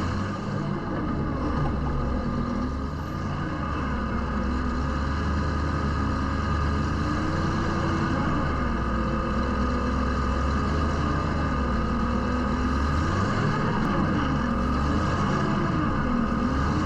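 Side-by-side UTV engine working under load while rock crawling, the engine note rising and falling again and again as the throttle is fed on and off.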